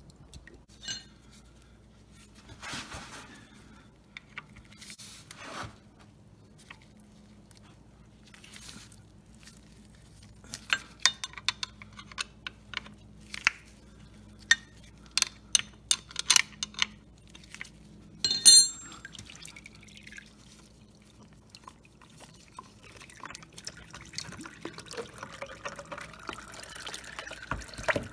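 Engine oil dripping and trickling from a BMW R1200RT's sump into a drain pan. A run of sharp metallic clicks and clinks from tool work under the engine comes in the middle, the loudest a single clatter about two-thirds of the way through.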